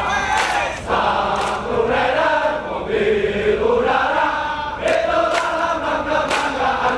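Massed soldiers chanting a military yel-yel in unison, singing a held melody together with a few sharp shouted accents.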